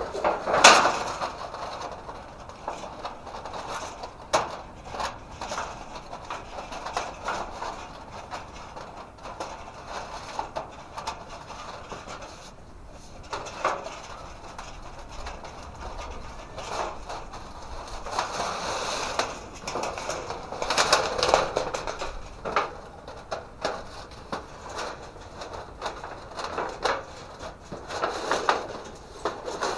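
Thin sheet-metal parts of a collapsible tent stove being handled and fitted together: scattered scrapes and clicks, with a sharp clack about half a second in and a busier run of scraping about two-thirds of the way through.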